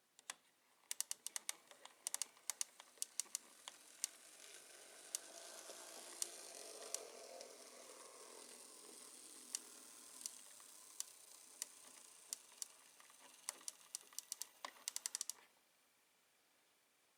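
Z-scale model V60 locomotive with a three-pole motor running along the track: a faint motor whir that swells and then fades, with rapid irregular clicking of the wheels over rail joints and points. Both stop near the end.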